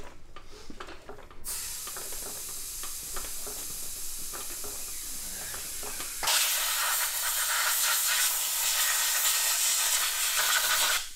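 Compressed air hissing from a hand-held air blow gun as it blows flood mud and water off a kart engine. The hiss is steady, gets much louder about six seconds in, and cuts off near the end.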